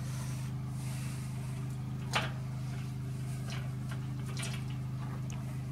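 Sharp metallic click about two seconds in as a bent steel locking pin is pushed into the hinge of a steel wagon's side panel, followed by a few fainter taps of metal on metal. A steady low hum runs underneath.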